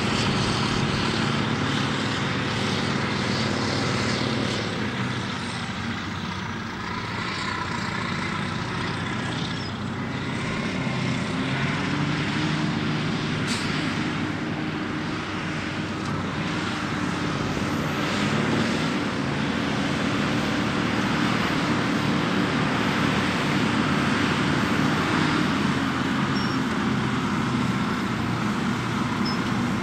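Caterpillar 637 twin-engine scrapers' diesel engines running hard under load as the scrapers load dirt in the cut, a steady heavy engine note that dips slightly and rises again as the machines pass.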